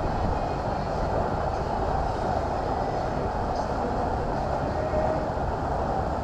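Steady drone of a passenger boat's engine and hull under way, heard from on board.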